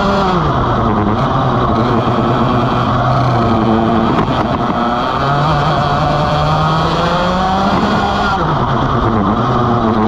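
Vortex ROK GP 125cc two-stroke kart engine heard onboard, its pitch dropping off throttle into a corner just after the start, holding low through the turn, then climbing as it accelerates from about five seconds in, and dropping again near the end.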